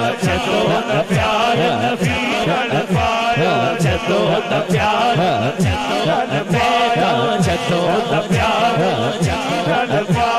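A man singing a naat in a wavering, ornamented voice over a steady low drum beat of about three beats a second.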